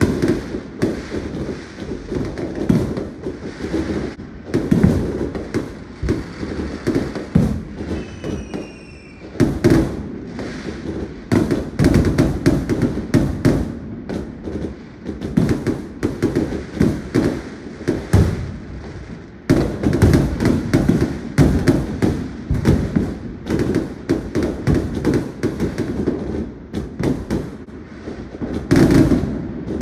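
Many fireworks going off at once: a nonstop run of overlapping bangs and crackling, easing off briefly about nine seconds in and again just before twenty seconds, then coming back in at full strength. A short whistle sounds about eight seconds in.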